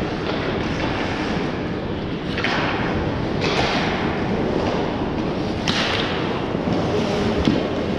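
Ice hockey play on a rink: a steady rumble of skating on the ice, broken by three sharp scraping hisses of skates digging in, about two and a half, three and a half and six seconds in, with scattered knocks of sticks and puck.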